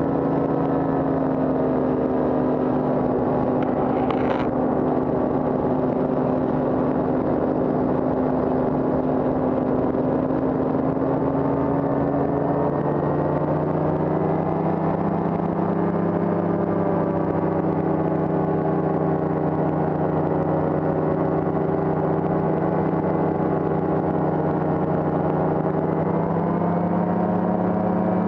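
Paramotor engine and propeller running steadily in flight. Its pitch rises a little after the midway point and again near the end as the throttle changes. A brief click comes about four seconds in.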